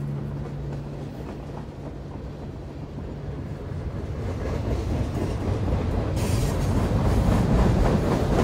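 Train running on the rails, getting steadily louder as it approaches, with clatter and brighter rail noise joining from about six seconds in. A steady low tone holds for the first three seconds or so, then fades.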